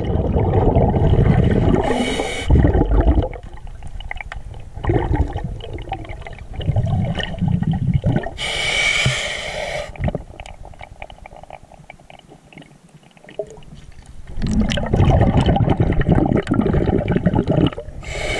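Underwater sound of a diver's regulator: exhaled bubbles rumbling and gurgling past the housing for the first few seconds and again for the last few, with a hissing inhale through the regulator around the middle.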